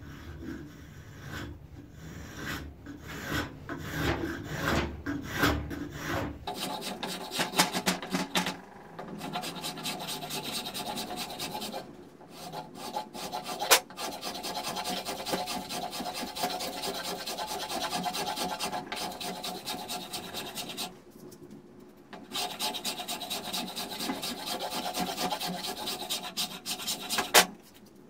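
A beech hammer-handle blank in a bench vise being shaved down by hand with an edged tool: repeated scraping cutting strokes that peel off curled shavings. There are a few seconds of knocking and handling first, the shaving stops twice for a second or so, and there is a sharp click in the middle.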